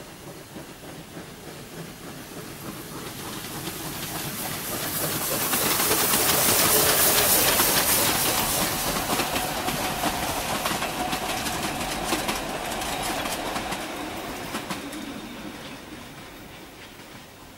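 A narrow-gauge steam locomotive and its carriages pass by working under smoke, with steam hissing and the wheels clicking over the rail joints. The sound grows louder as the train approaches, peaks about six to eight seconds in, and fades as it moves away.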